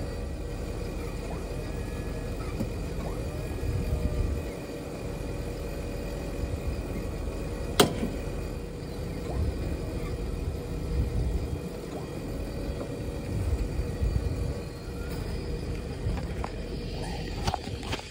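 Truck engine running steadily with a low rumble while a boom loader handles pallets of beehive boxes; one sharp clack about eight seconds in.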